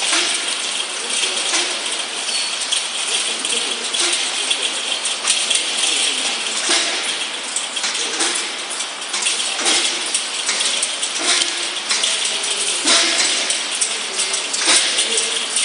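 Chain-link wire mesh rattling and clinking against a steel tube frame as it is pulled and worked into place by hand: a continuous jingle of many small metal clicks.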